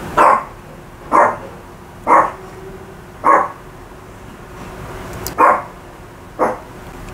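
A dog barking: six short barks about a second apart, with a pause of about two seconds near the middle.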